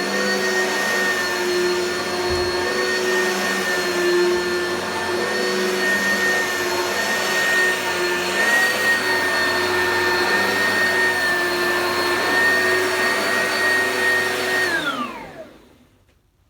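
Oreck vacuum cleaner running with a steady motor whine, then switched off near the end, its whine falling in pitch and fading out as the motor spins down.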